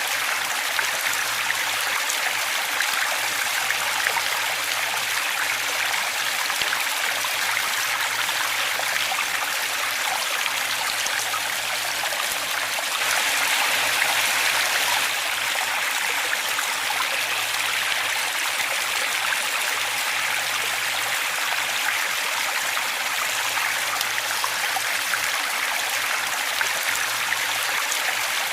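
Steady rushing of water at a waterfall, an even continuous hiss that swells slightly louder for a couple of seconds about halfway through.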